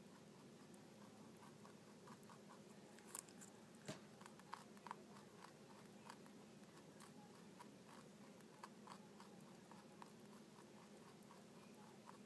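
Dwarf Hotot rabbit chewing chopped greens and carrots: faint, quick crunching clicks, a few of them sharper between about three and five seconds in.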